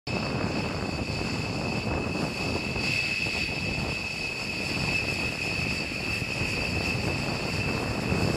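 B-1B Lancer's four General Electric F101 turbofan jet engines running, a steady high-pitched whine over a broad rumble.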